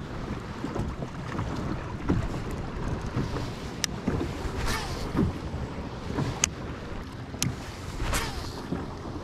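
Small waves lapping and slapping against the hull of a small plastic fishing boat, with wind buffeting the microphone. Several sharp clicks stand out over it.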